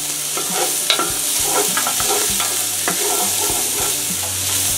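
Diced carrots, celery and garlic sizzling in hot bacon fat in an enamel-coated cast iron pot, with a wooden spoon scraping and knocking against the pot as they are stirred. The sizzle is a steady hiss, broken by frequent short clicks from the spoon.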